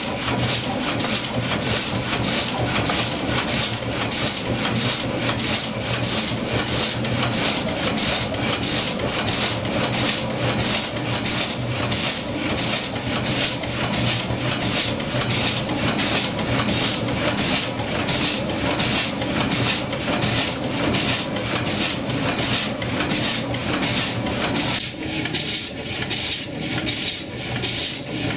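Up-and-down sawmill's straight vertical blade rasping through a log, about two cutting strokes a second in a steady rhythm, over a steady low hum.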